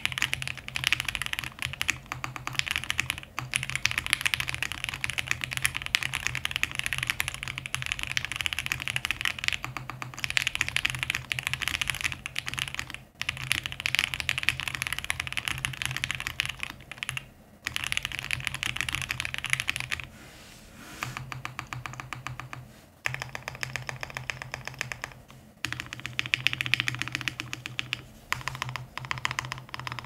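Fast, continuous typing on a QK65 gasket-mounted custom mechanical keyboard with lubed and filmed Banana Split linear switches, an FR4 plate, case foam and GMK keycaps: a dense stream of key clacks broken by a few brief pauses and a quieter stretch about two-thirds through.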